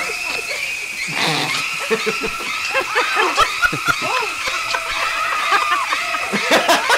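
A dubbed-in laugh track of an audience chuckling and laughing, which builds up about a second in, over the high, held, screeching string notes of the shower-murder film score.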